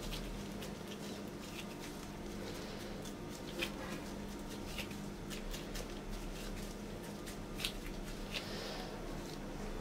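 Faint squishing and rustling of hands in disposable plastic gloves pressing soft mashed-potato mixture into cup shapes, with a few small clicks, over a steady low hum.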